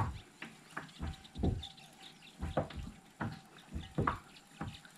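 Small waves lapping and slapping against the plastic hull of a sit-on-top kayak: soft, irregular splashes about every half second to a second.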